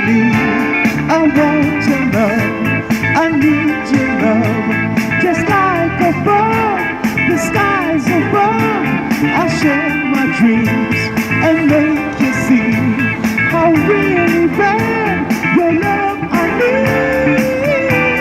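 Background music: a rock song with guitar over a steady beat, with a melody line bending up and down.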